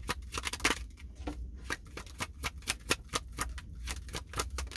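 Tarot cards being shuffled by hand: quick, irregular crisp snaps of card on card, over a steady low hum.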